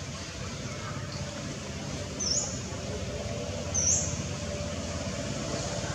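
Steady outdoor background rumble and hiss, with two short high chirps about a second and a half apart near the middle.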